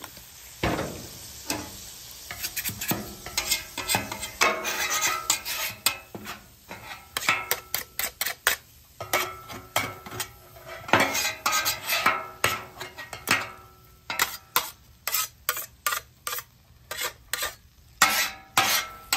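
Metal spatula and bench scraper scraping and clanking in quick strokes across a hot steel griddle top, while water squirted onto the hot surface sizzles into steam, softening the hardened sugary sauce so it lifts off.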